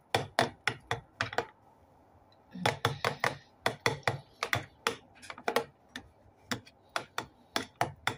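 A metal utensil tapping rapidly against the bottom and sides of a plastic tub while mashing tofu and egg together, about three to four sharp clicks a second. There is a pause of about a second near the start.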